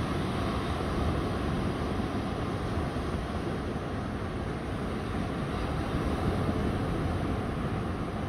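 Ocean surf breaking on a sandy beach: a steady, unbroken wash of waves, heaviest in the low range.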